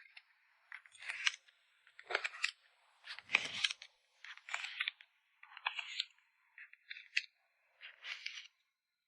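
Short bursts of crinkling and scratching from photocard packing materials being handled, about one burst a second with silent gaps between.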